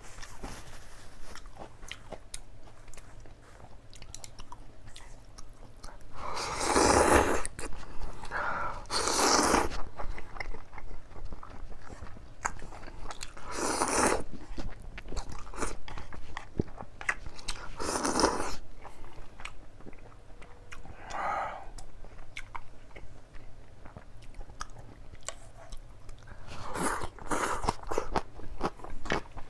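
Close-miked mukbang eating: a person chewing and biting food, with many small wet clicks and about six louder noisy mouth sounds of around a second each.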